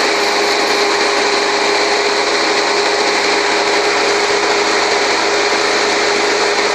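Troy-Bilt lawn mower's small Briggs & Stratton four-stroke engine running steadily at governed speed on its newly installed replacement carburetor, just after its first start.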